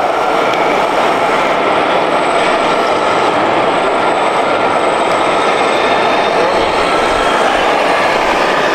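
Steady mechanical running noise from a 1/14-scale RC Liebherr 956 hydraulic excavator working its boom and bucket, with a faint steady whine over it.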